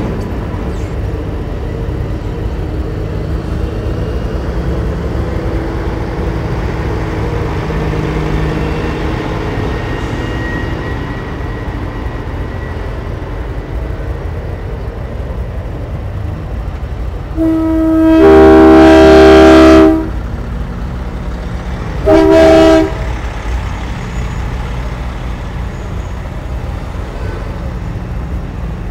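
Semi trucks rolling past at low speed, diesel engines rumbling steadily. About two-thirds of the way through, a truck sounds a multi-tone air horn: one long blast of about two seconds, then a short blast a couple of seconds later.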